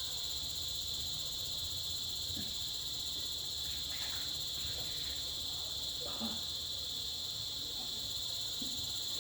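Insects trilling steadily in one continuous high-pitched drone, over a faint low hum.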